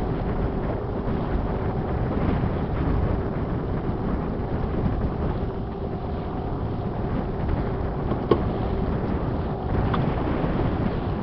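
Boat at sea under way: its engine runs with a steady hum, over water and wind noise buffeting the microphone. A single sharp click comes about eight seconds in.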